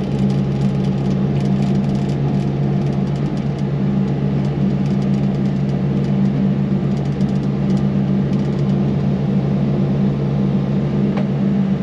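Yanmar SV100 excavator's diesel engine running steadily at a constant speed, with a faint click near the end.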